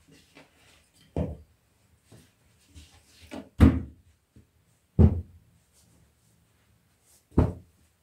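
Four dull, heavy knocks spaced one to two seconds apart, with lighter clicks and clatter in between; the second and third are the loudest.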